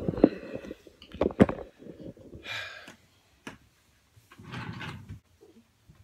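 Handling noise: a cluster of knocks and thumps, two of them sharp and loud, as the phone camera is moved and set down, then two short bursts of rustling with a click between them.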